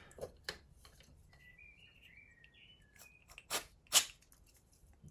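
Two short hisses from an aerosol can of CA (superglue) accelerator sprayed onto freshly glued work to cure the glue, about 3.5 and 4 seconds in. Faint handling clicks come before them.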